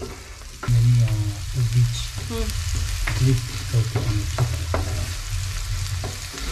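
Chopped spring onions sizzling in hot oil in a frying pan while a wooden spoon stirs them, scraping and knocking against the pan over and over; the loudest stroke comes just under a second in.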